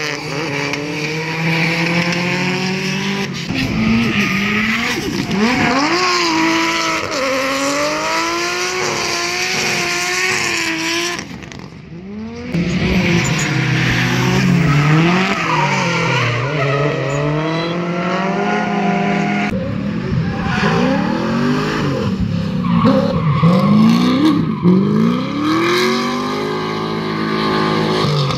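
Drift cars sliding through a hairpin one after another, engines revving up and down with long tyre squeal. A brief lull about twelve seconds in, before the next car comes through.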